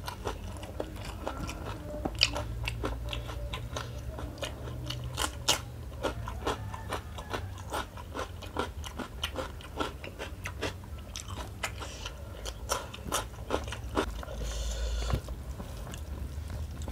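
Close-miked crunching and chewing as a person bites into raw green chili and cucumber, with many sharp crisp crackles and wet mouth sounds. Near the end there is a brief rustling scrape as fingers work through rice on a metal plate.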